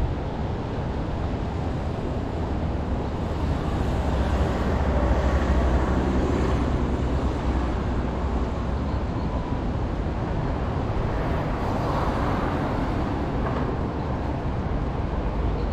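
Outdoor street ambience with a steady low rumble; a vehicle passes, swelling and fading about four to seven seconds in.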